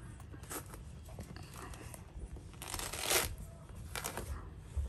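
Hands tearing and picking at the thick, spongy white pith of a half-peeled pomelo, making soft scratchy tearing noises with a few small clicks. A louder rip comes about three seconds in.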